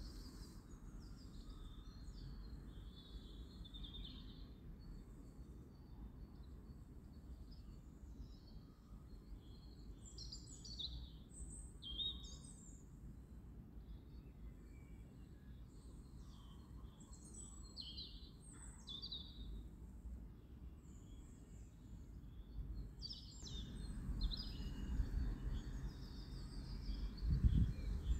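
Small birds chirping and twittering in quick short calls, over a steady low rumble of background noise that grows louder near the end.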